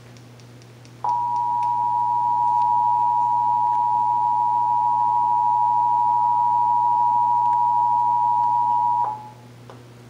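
Emergency Alert System attention signal: the two-tone alarm of 853 and 960 Hz sounding together, a steady dual tone that starts about a second in and cuts off after about eight seconds. It is heard through a television's speakers and marks the start of a Required Monthly Test alert.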